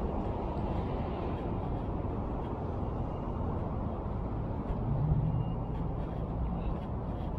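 Street traffic rumbling steadily, with a vehicle engine's low drone swelling about five seconds in and fading again a little over a second later.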